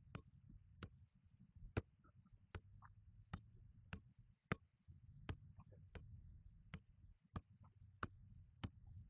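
Soccer ball being juggled with the feet: a steady run of sharp taps, one touch about every two-thirds of a second, over a low background rumble.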